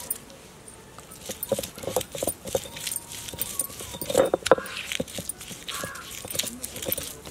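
Stone roller rocked and rolled over garlic and ginger on a stone grinding slab (ammi kal), giving irregular knocks and gritty crunches. The knocks come thick and fast from about a second in.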